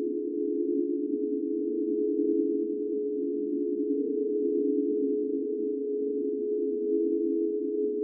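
Ghost sound effect: a steady, unbroken drone of several close-pitched tones, with one clear higher tone over a denser hum beneath it, neither rising nor falling.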